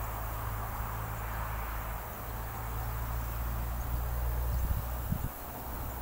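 Faint scratchy rasping of a wasp scraping fibre off weathered wood with its mandibles, gathering pulp for its paper nest, over a steady low rumble.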